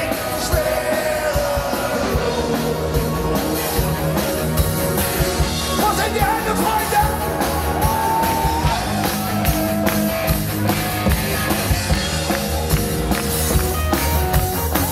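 Live rock band playing with a singer, with drums, guitar and bass, heard loud from among the audience.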